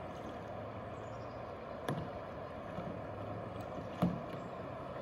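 Kayaks being paddled on a calm river: a steady wash of moving water, with two sharp knocks about two and four seconds in.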